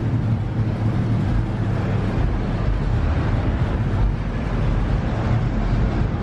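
Steady low vehicle rumble with wind noise on the microphone.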